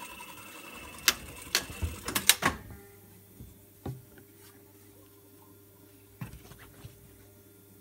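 An industrial sewing machine running with a steady whine, broken by a quick run of six sharp clicks. The sound then drops suddenly to a quieter steady low hum with a few faint knocks.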